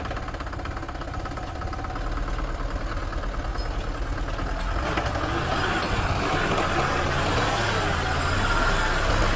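Diesel engine of a loaded Hoa Mai light dump truck working under load as the truck reverses up a heap of loose soil. It gets louder about two seconds in and again about halfway, as it revs harder to climb.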